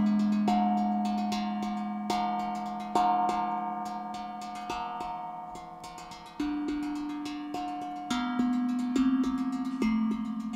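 Hand-played tuned steel drum: fingers strike single notes in a slow melody, each note ringing on and overlapping the next above a lingering low note. A quick run of light taps comes near the end.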